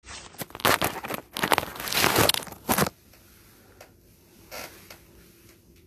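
Handling noise on a phone's microphone: loud rustling, scraping and crackling for about three seconds while the phone is moved and set in place, then quiet with one soft brush of noise near the end.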